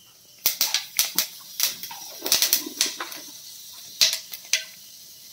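Mustard and fenugreek seeds popping and spluttering in hot oil in a wok, the tempering stage of a curry: irregular sharp pops in clusters that thin out after about four and a half seconds.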